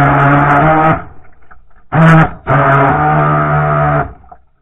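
RC boat's motor running at a steady pitch in bursts, as the throttle is worked: it cuts off about a second in, gives a short blip around two seconds, runs again and cuts off again near the end.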